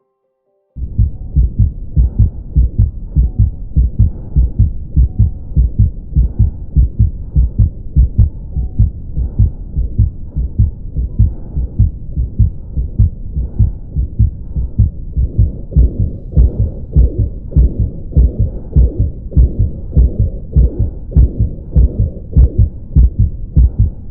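Auscultation recording of the heart in a ventricular septal defect: a steady, repeating rhythm of heartbeats with a systolic murmur at the left sternal border, and the second heart sound loud and split over the pulmonary artery. The beats begin about a second in.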